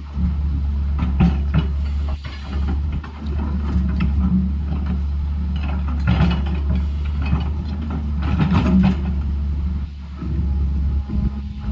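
Heavy tracked construction machine's diesel engine running steadily under load, with irregular metallic clanks and knocks of steel working against rock and soil.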